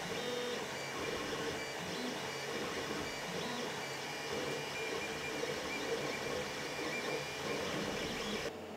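Stock Creality CR-10 3D printer printing, with its original hotend fan and rigidly mounted stepper motors: a steady fan rush under the steppers' shifting whine and buzz as the print head and bed move. This is the printer's loud stock state, before the Noctua fan swap and motor vibration dampers. It drops away sharply near the end.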